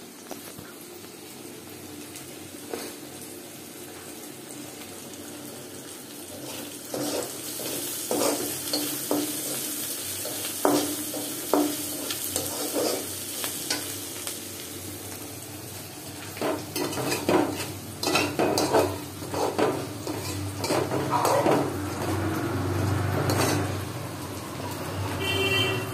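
Sliced onions and green chillies sizzling in oil in a heavy black karai, stirred with a steel spatula. The frying hiss is steady at first; from a few seconds in, the spatula scrapes and knocks against the pan again and again. Near the end, a spatula stirs a pot of curry.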